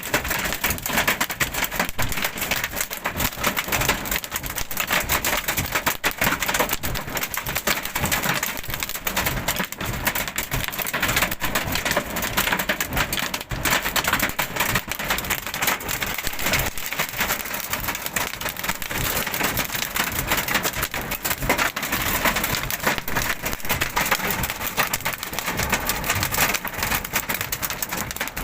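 Hailstones and heavy rain pelting down together, a dense, continuous clatter of countless small impacts.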